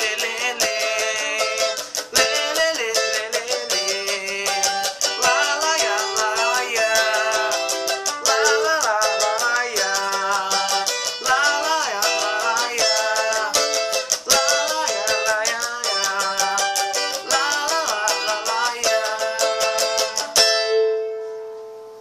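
Cavaquinho strummed fast in a pagode rhythm, with a wordless vocal melody wavering over the chords. Near the end the strumming stops and a last chord rings out and fades.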